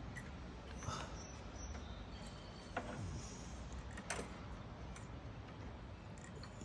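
A few faint clicks and knocks of metal parts being handled as a lawnmower carburetor is removed, over a steady low background hum.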